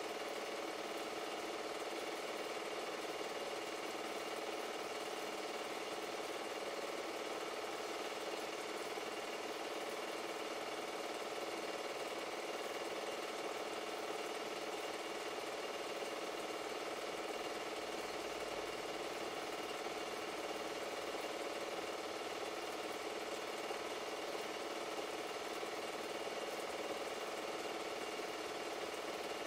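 Super 8 film projector running steadily, a continuous even mechanical whir with no change through the stretch.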